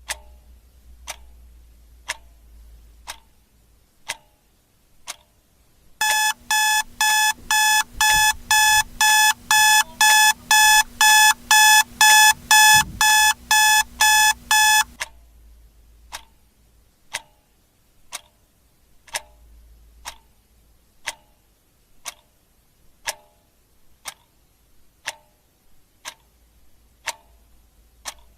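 A clock ticking once a second. About six seconds in, an alarm clock starts beeping in rapid pulses, about two a second, for around nine seconds, then stops suddenly while the ticking goes on.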